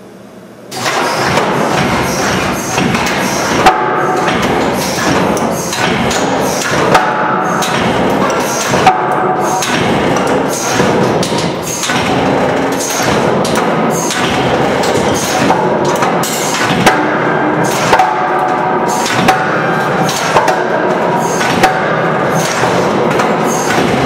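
Loud, steady running noise of the loading system cyclically pushing and pulling a steel braced frame, with sharp bangs and knocks every second or two from the steel brace and Scorpion yielding connector under reversing load. It starts about a second in.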